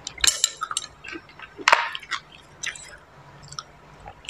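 Close-miked eating sounds: wet mouth smacks and chewing on boiled field-snail meat taken off a toothpick, with a string of sharp clicks, the loudest about two seconds in.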